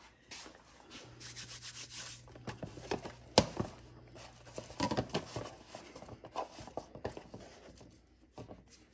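A hand scooping and rubbing flour in a plastic tub: dry, irregular rustling and scraping, with one sharp tap a little over three seconds in.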